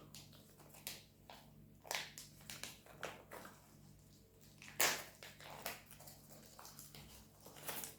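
Faint handling noises: scattered small clicks and rustles, with one louder click about five seconds in, over a faint steady low hum.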